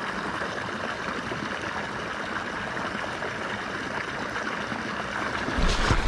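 Water pouring from an outlet pipe into a pond, a steady splashing rush. Near the end there is a brief, louder low rumble.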